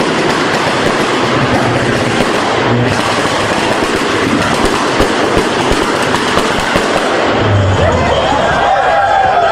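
A tuned car's exhaust firing a fast, unbroken string of pops and bangs. Near the end the engine's revs swing up and down.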